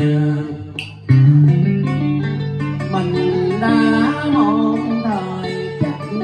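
Guitar playing a Vietnamese cải lương-style melody over a held low note, with bent, wavering notes; the music dips briefly and comes back strongly about a second in.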